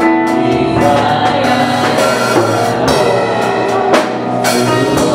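Gospel praise-and-worship music with a drum kit beating a steady rhythm under sustained instrumental chords and singing.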